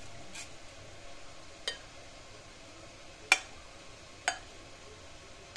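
Metal whisk working thick salted zabaione (an egg-yolk cream) in a glass bowl: soft stirring with three sharp clinks of the whisk against the glass, the second one the loudest.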